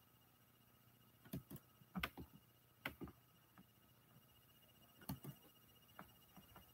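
Near silence, broken by faint, sharp clicks and taps in small clusters, about a dozen in all, bunched around one, two, three and five seconds in.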